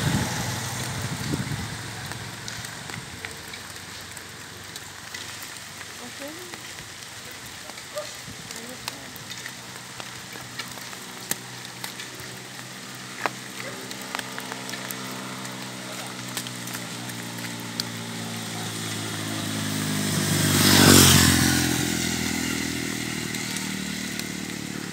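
Steady hiss of rain and water on a wet asphalt road, with scattered small clicks. Near the end a motorcycle comes up, passes close with its tyres hissing on the wet road, then fades away.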